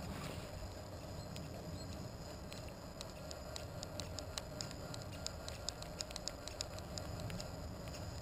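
Multicopter motors and propellers running steadily in a hover, a constant hum over a low rumble. In the middle there is a run of short sharp ticks, several a second.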